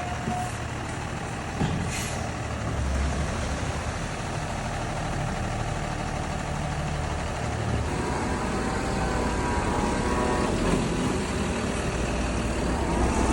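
Heavy diesel construction vehicle running steadily with a low engine rumble, with a short hiss about two seconds in.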